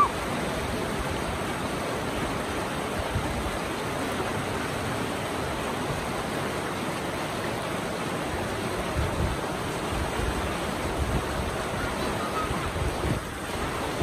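River rapids rushing steadily over and between boulders, with a brief rising whistle right at the start.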